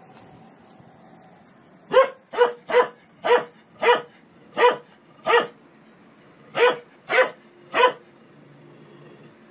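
A dog barking at a running front-loading washing machine: about ten sharp, mid-pitched barks in quick succession, with a short pause about two-thirds of the way through.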